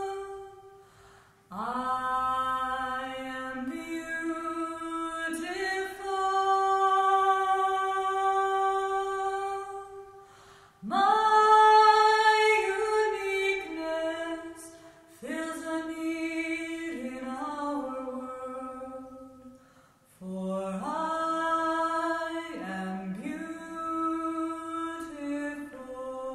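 Community singing group performing unaccompanied, a cappella, in long sustained phrases with brief pauses between them.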